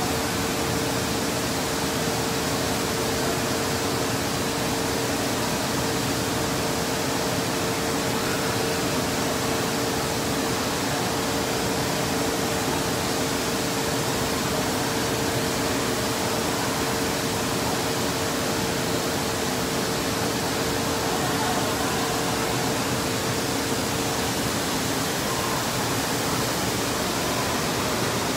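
Steady background noise of an indoor water park: an even rush of running water and air handling, with a steady hum that stops about 25 seconds in.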